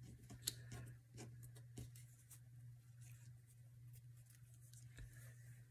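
Faint rustling and a few light ticks of paper cut-outs being picked through by hand, over a steady low hum.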